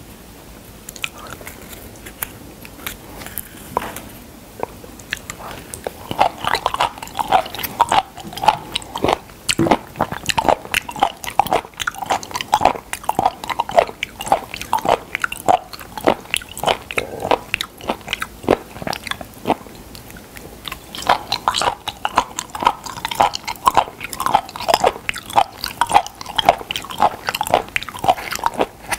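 A person chewing raw spoon worm and other raw seafood close to the microphone: rapid clicks and crunches of chewing, several a second. The chewing is fainter for the first six seconds and eases briefly about twenty seconds in.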